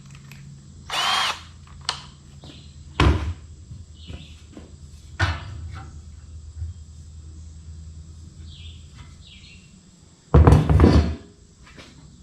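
Workshop tool sounds: a few sharp knocks of parts being handled and short bursts of a power drill, the loudest burst lasting just under a second near the end.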